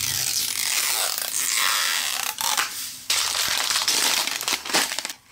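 Plastic shrink-wrap crinkling and crackling as it is picked at and peeled off a plastic toy capsule, with a short break about three seconds in.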